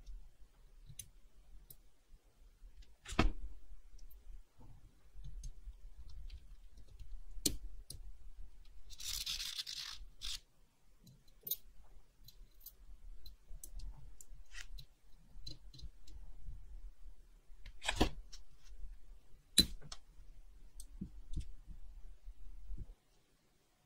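Small metal tools and watch parts clicking and tapping on a workbench during watch restoration, with a few sharper clicks. About nine seconds in there is a brief high hiss lasting about a second.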